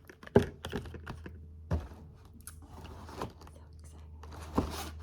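Makeup products and their packaging being handled: a run of clicks, taps and knocks, the loudest near the start, as items are picked up and set down.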